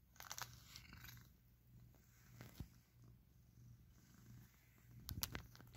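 Domestic cat purring faintly and steadily, with a few soft rustles of a brush on its fur in the first second and again near the end.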